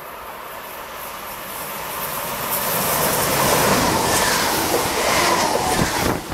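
Z 23500 double-deck electric multiple unit running past close by through a tight curve: a rush of train running noise that builds over the first three seconds and stays loud. Thin wheel-squeal tones from the curve ride on top of it.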